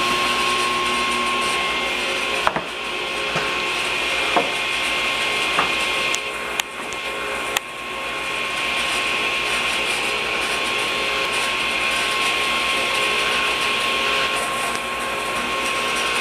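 A shop machine running steadily, a hiss with a high whine, the kind of noise a table saw or dust extractor makes while idling between cuts. A few sharp knocks stand out over it near the middle.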